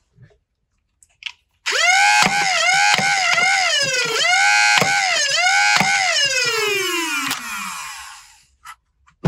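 Flywheel motors of a 3D-printed Freedom Blasters Grass Snake foam-dart blaster spinning up to a high whine. The pitch dips sharply and recovers each time a dart is fired, several shots in quick succession. Near the end the whine falls away steadily as the flywheels spin down.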